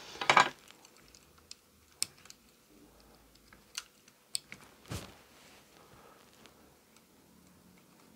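Hands handling an e-bike battery's BMS circuit board and its wiring. A short rustling scrape comes just after the start, then a few sharp separate clicks follow over the next few seconds.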